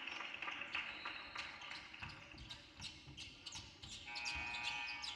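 Gym basketball game sounds: a basketball bouncing on the court amid scattered knocks and squeaks, with a steady horn-like tone lasting about a second near the end.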